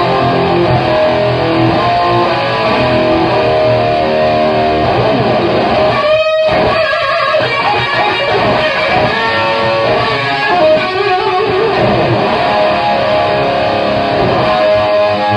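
Gibson Les Paul Classic electric guitar played through a Laney AOR 50 Series 2 valve amp, driven by a Digitech Bad Monkey overdrive and an MXR Black Label chorus. It plays a continuous passage of chords and single notes.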